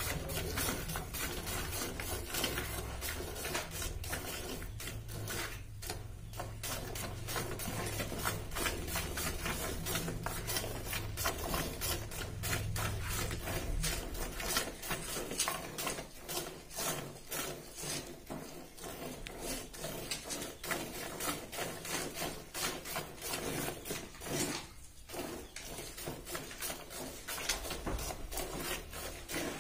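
A cow being milked by hand: quick, rhythmic squirts of milk, one jet after another, hitting the milk in a plastic bucket.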